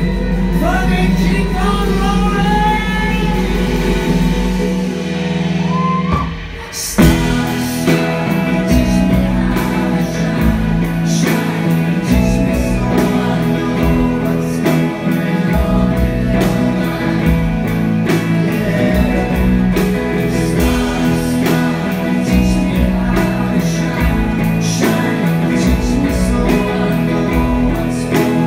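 A live band playing a song in a large hall: singing over guitar and a held low note, a brief drop around six seconds in, then drums and bass come in and the full band plays on with a steady beat.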